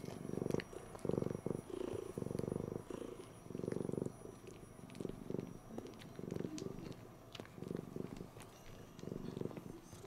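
Domestic cat purring loudly, the purr swelling and fading with each breath, with faint clicks as it suckles on a fleece blanket while kneading it.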